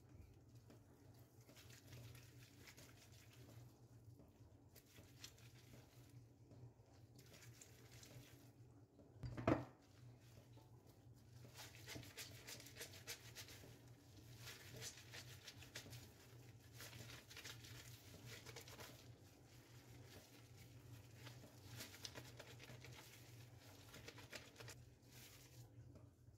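Faint wet rubbing and squishing of a soapy terry kitchen cloth being scrubbed and kneaded by hand in a stainless steel sink. There is one short knock about nine and a half seconds in.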